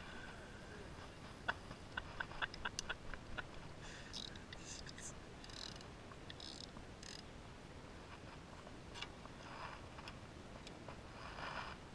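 Faint, irregular clicking as a spinning fishing reel and rod are handled: a quick run of about eight light clicks in a couple of seconds, then a few soft hissy rustles.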